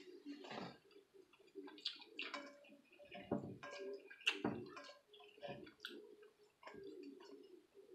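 Hands rummaging through seafood boil in a large glass bowl of sauce: irregular wet squelching and sloshing, with small clicks and taps against the glass.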